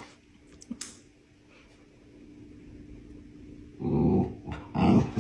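A pomsky growling: two short, low growls, the first about four seconds in and the second about a second later.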